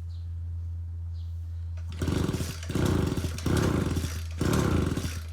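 Mitsubishi TUE26 two-stroke brushcutter engine turned over by the pull-start, the spark plug out, four quick pulls in a row from about two seconds in. The engine is being cranked to clear flood water from the cylinder.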